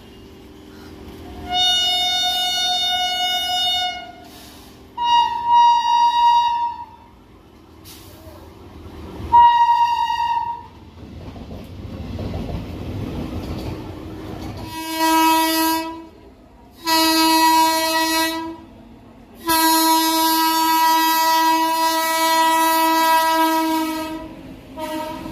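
Indian Railways electric locomotive horns sounding in a series of blasts. Three shorter, higher-pitched blasts come in the first ten seconds, then the rumble of a light locomotive running past, then three blasts in a lower, fuller horn, the last held for about four seconds.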